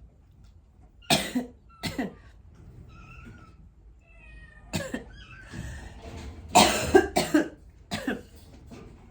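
A run of about six short, sharp coughs, loudest near the middle, with faint kitten mews between them.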